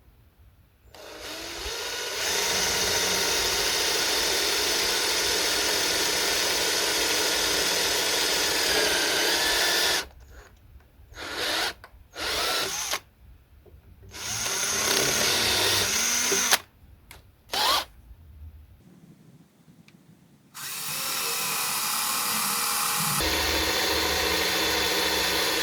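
Electric drill with a small pilot bit drilling pilot holes through centre-punched marks into a sacrificial timber backing. It runs steadily for about nine seconds, gives several short bursts, then runs steadily again near the end.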